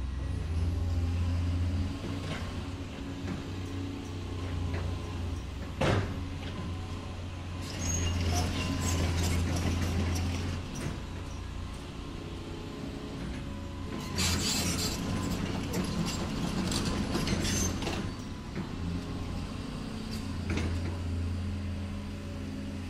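Huina radio-controlled model excavator working, its motors running in spells with a low steady hum. Higher gritty noise comes twice as the bucket works the soil, and there is one sharp knock about six seconds in.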